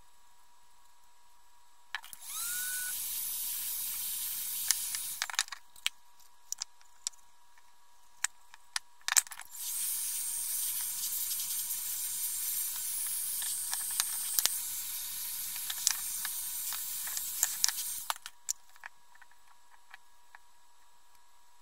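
Craft heat gun blowing, drying freshly applied white paint on a wooden box. It runs twice: about two seconds in for roughly three seconds, starting with a short rising whine as it spins up, then again from about nine seconds in for roughly nine seconds. Light clicks and taps of handling come between and after the runs.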